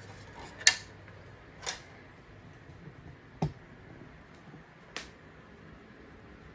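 Four separate sharp clicks and knocks, the loudest about a second in, the others spread over the next few seconds, as from handling a machine's metal parts.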